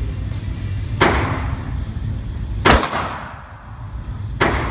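Three pistol shots fired on an indoor range, spaced about one and a half to two seconds apart, each with a short echoing tail.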